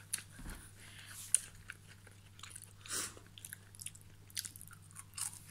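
Crisp chocolate wafer sticks being bitten and chewed: a string of small irregular crunches and clicks, with one sharper crack a little over a second in.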